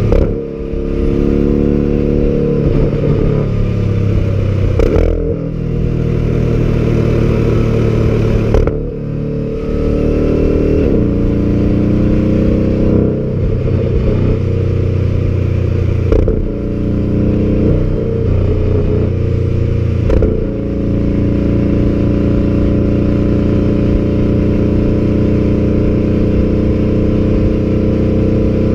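Porsche mid-engine sports car's boxer engine and exhaust under hard driving, pulling through the gears with a short break in the sound at each of several shifts. For the last eight seconds it runs at steady revs.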